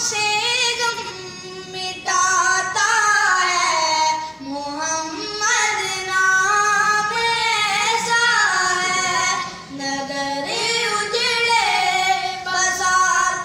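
A solo voice singing a naat, an Islamic devotional song, in long ornamented phrases that slide up and down in pitch.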